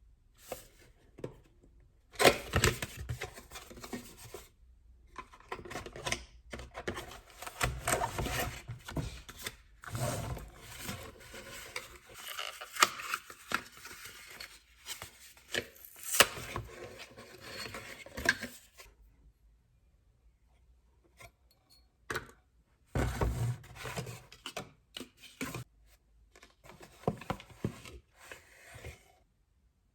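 Hands handling shopping packaging and small items up close: irregular scraping and rustling with small knocks and clicks. It pauses for a few seconds about two-thirds of the way in, then starts again.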